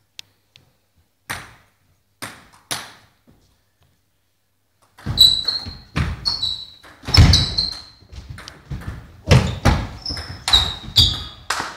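Table tennis ball ticking a few times as it is bounced before the serve, then a fast rally from about five seconds in: quick sharp clicks and pings of the ball off bats and table, mixed with heavier thumps.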